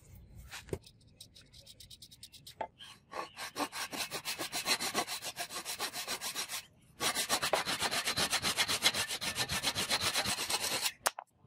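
Hand saw cutting through a round wooden stick: a few light scrapes, then fast, even back-and-forth sawing strokes that pause briefly midway and stop abruptly near the end.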